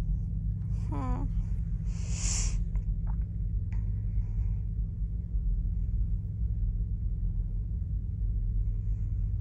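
A steady low hum, with a short pitched 'mm' from a person about a second in whose pitch rises and falls, then a brief hissing breath about two seconds in and a couple of faint clicks.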